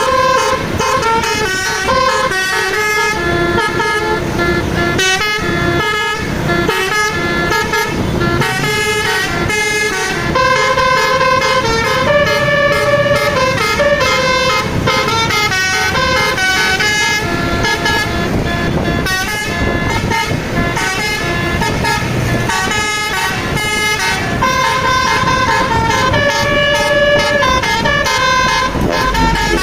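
Basuri bus horn, a multi-tone air horn, playing a melody: a long run of loud notes stepping from pitch to pitch, some held about a second, others short and quick.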